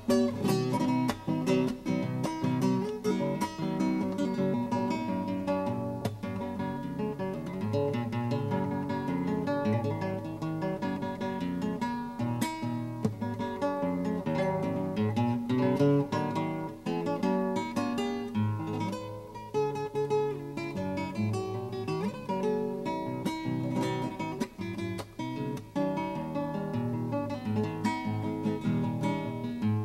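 Background music on acoustic guitar: a steady run of plucked notes.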